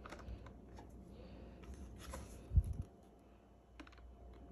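Light clicks and taps of small screws and plastic parts being handled in a vacuum's filter housing, with one dull thump about two and a half seconds in.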